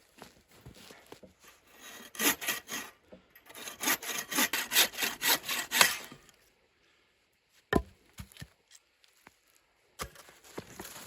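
Saw cutting through wood in quick, even strokes, about four a second, for a few seconds, followed by a single sharp knock and a few light clicks of wood being handled.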